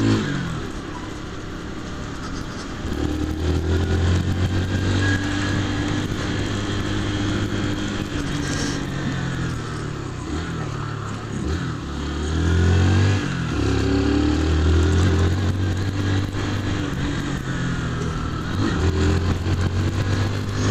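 Honda CG 150 Fan motorcycle's single-cylinder four-stroke engine running under way. Its pitch rises and then drops several times as it is shifted through the gears. It is quieter for the first couple of seconds.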